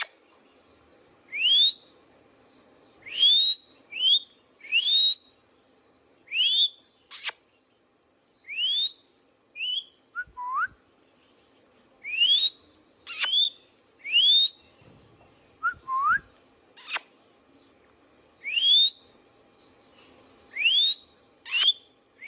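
Indian ringneck parakeet calling: repeated rising whistles, one every second or two, with a few short shrill squawks between them.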